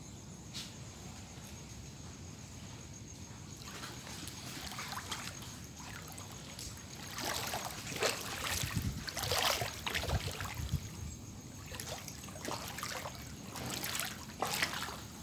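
Floodwater splashing and sloshing in irregular splashes that grow busier about halfway in, with a few low thuds in the middle.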